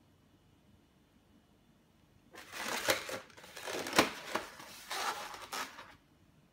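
Twisted 360Q latex balloon turtle rubbing against hands as it is squeezed and handled, starting about two seconds in, with a few sharp clicks, the loudest near the middle.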